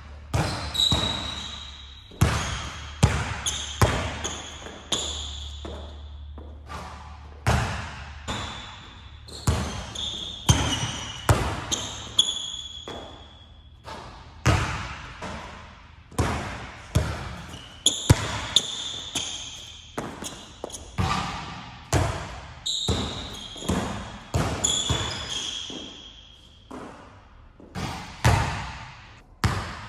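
A basketball being dribbled hard on an indoor court, bouncing irregularly about once or twice a second with echo in the hall, mixed with brief high squeaks of sneakers on the court floor as the player cuts around cones.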